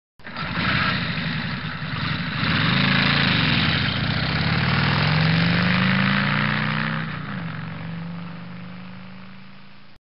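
An engine comes in suddenly and revs up and down, holds a higher steady pitch, then drops back and runs steadily, fading toward the end.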